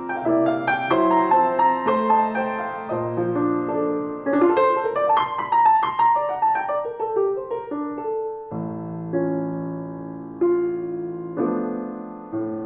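Solo piano music, a melody with chords, played back through Soviet 10GDSh full-range loudspeakers. About eight seconds in, the playing thins to slower, softer held chords.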